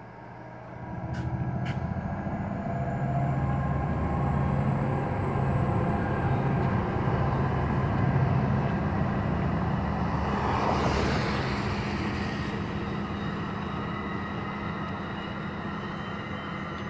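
Exo commuter train passing close by, led by a Bombardier ALP-45DP dual-mode locomotive running on its diesel engines. A steady low diesel drone swells about a second in as the locomotive nears and holds while it goes by. A louder rush of wheel and rail noise from the bilevel coaches peaks midway, then slowly fades.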